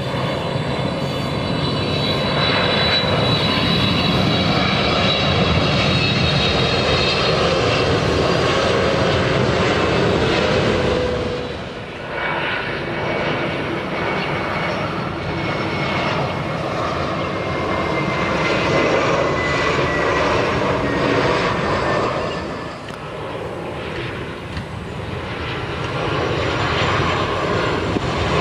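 Jet airliners on final approach passing overhead, one after another: first a Boeing 777-300ER's GE90 engines, then an Airbus A320, then a Boeing 737-800's CFM56 engines. Each is a loud engine roar with a high whine that slowly drops in pitch, and the sound cuts to the next aircraft about 12 seconds in and again about 23 seconds in.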